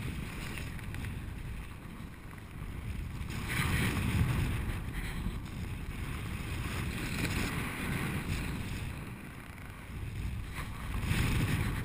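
Wind rushing over the microphone of a camera on a paraglider in flight. It swells louder twice, about four seconds in and again near the end, as the glider banks through its turns.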